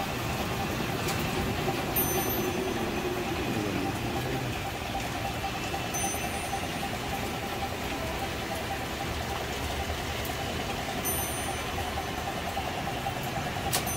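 Model trains running on a large layout: a steady mechanical whirring rumble of motors and wheels on track, with faint short high pips a few times.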